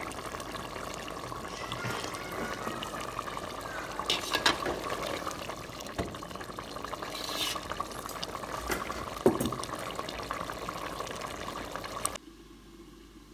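Fish curry boiling vigorously in a metal pot: a steady bubbling hiss with scattered pops, a few louder ones about four and nine seconds in. It stops abruptly near the end.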